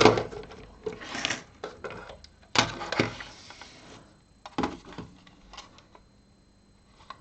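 Scattered clicks and knocks from handling the opened DAB radio and its loose power jack, the sharpest near the start and about two and a half to three seconds in, fading to a few light taps.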